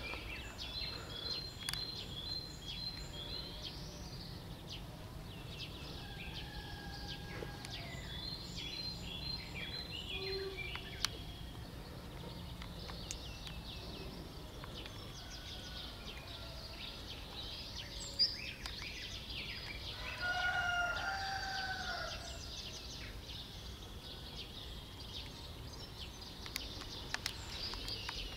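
Outdoor ambience of small birds chirping and singing in short repeated high notes, over a steady low background hum. About twenty seconds in comes a louder drawn-out call in two parts, falling at the end.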